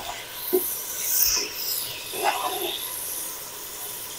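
Whole spices frying in hot oil with a steady hiss, while a metal spatula scrapes and rubs against the aluminium pot in a few short strokes.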